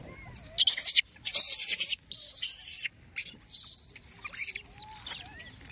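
Monkeys giving short high squeaks and chirps, among loud hissing rustles that come in bursts of under a second, three of them in the first three seconds.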